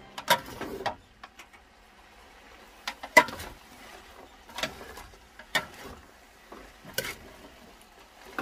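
Ladle and spatula tossing cabbage and other vegetables in an aluminium pot. The utensils knock against the pot about six times, sharpest about three seconds in, with the vegetables rustling in between.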